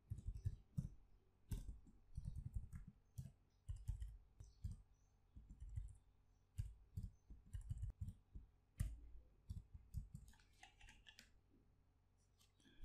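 Faint computer-keyboard typing: irregular keystroke clicks as a line of CSS is typed.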